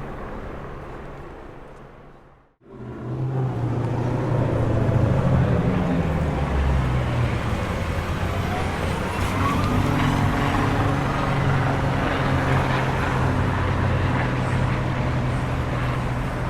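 Los Angeles street traffic: vehicle engines running with a steady low hum over road noise. One recording fades out to silence about two and a half seconds in and the next fades in.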